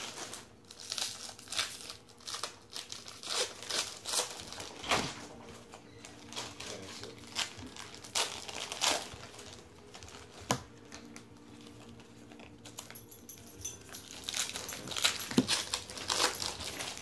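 Foil trading-card pack wrappers crinkling as they are torn open and handled, in irregular crackles with short pauses.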